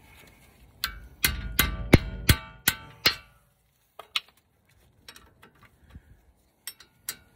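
A hammer strikes a wrench on a brake caliper bracket bolt about seven times in quick succession, each blow a ringing metallic clang, to break the bolt loose. A few light clinks of the wrench follow.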